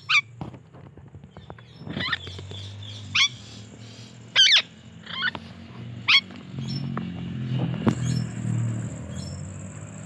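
Indian ringneck parakeet giving short, sharp squawking calls, about six of them spread over the first six seconds, with a low steady hum underneath.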